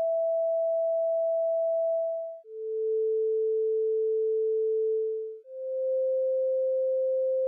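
A slow run of pure electronic sine tones, each held about three seconds and fading into the next. A higher tone gives way to a lower one about two and a half seconds in, then to a middle one about five and a half seconds in.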